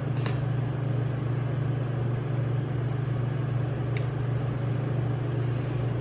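Steady low hum with a faint noisy background, broken by a few faint short ticks.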